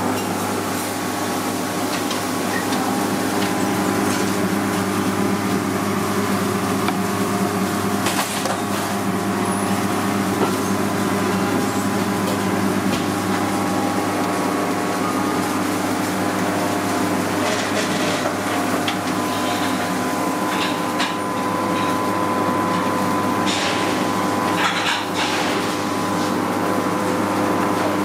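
Steady hum of commercial kitchen machinery, with a few short knocks and clatters of a carving knife and a prime rib roast handled on a plastic cutting board, about eight seconds in and again in the last third.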